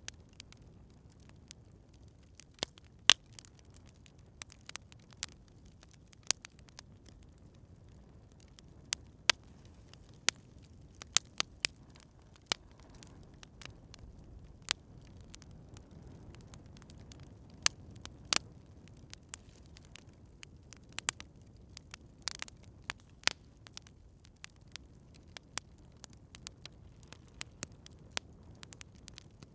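Campfire crackling: irregular sharp pops and snaps, a few much louder than the rest, over a steady low rumble from the burning fire.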